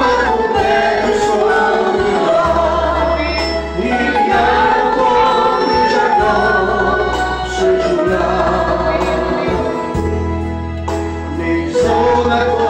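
Christian worship song: music of sustained chords over held bass notes that change about every two seconds, with singing.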